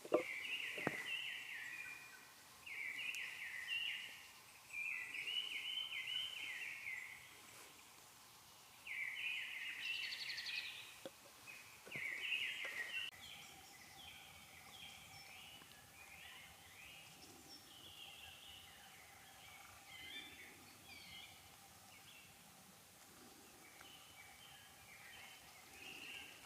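A songbird singing in repeated short, trilled phrases of about a second each, with a couple of sharp knocks near the start.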